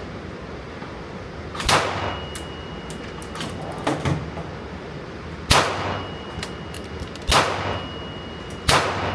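Gunshots at a firing range: four loud shots fired at uneven intervals, each trailing off in a brief echo, with two fainter shots between the first two.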